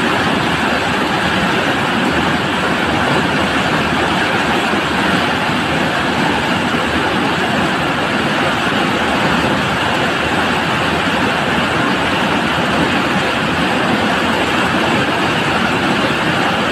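Rain-swollen floodwater rushing fast and turbulently along a channel: a steady, loud rush of water.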